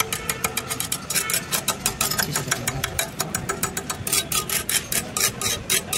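Rapid, irregular metal-on-metal tapping: the end of a welding rod knocking slag off fresh stick-weld beads on a steel plate. A steady low hum runs underneath.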